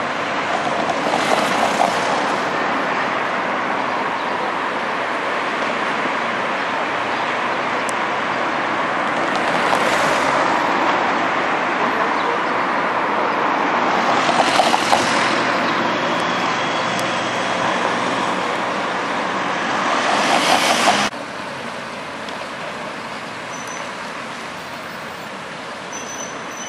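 Steady city road traffic, with four cars swishing past one after another. The noise drops suddenly about three-quarters of the way through to a quieter, steady traffic hum.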